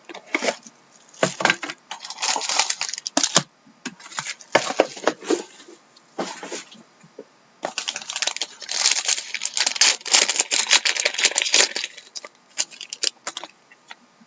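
Crinkling and tearing of plastic shrink wrap as a sealed trading card box is unwrapped, in several bursts of crackling a second or more long with short pauses between them.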